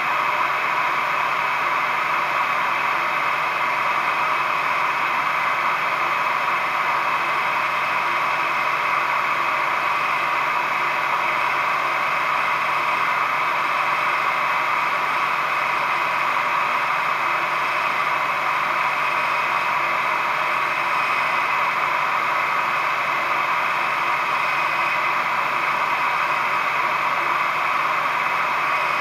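Heat gun running steadily on its cool setting: an even blowing whir aimed at the VW Type 3 engine's cooling-flap thermostat, cooling it so that it contracts and the flaps close.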